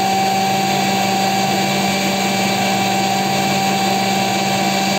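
Electric mixer grinder (mixie) running at steady speed with a constant motor whine, grinding a wet green chutney of coriander, green chillies and a little water in its jar.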